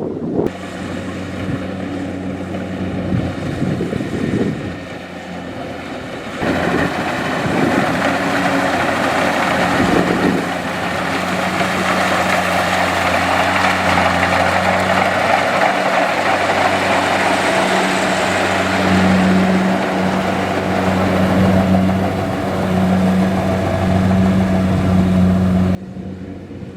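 Kubota DC-70 rice combine harvester running steadily, its engine hum under the noise of the working machine. It grows louder about six seconds in and cuts off abruptly near the end.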